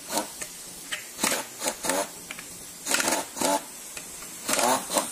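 Short rasping strokes, mostly in pairs about every second and a half, from a hand tool loosening bolts on the valve cover of a Kia Cerato's four-cylinder engine during teardown.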